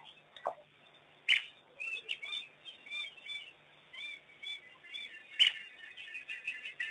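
Repeated short, high chirping calls. Two sharp, louder sudden sounds cut across them, one about a second in and one about five seconds in.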